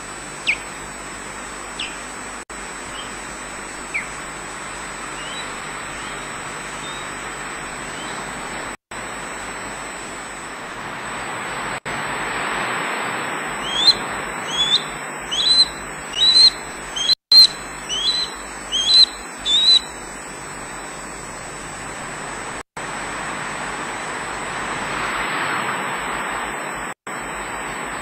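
Osprey calling off-camera. First come a few scattered sharp rising chirps, then a quick run of about ten rising whistled calls over some six seconds, which sound like skydancing display calls. Under them runs a steady hiss of wind on the microphone, swelling twice.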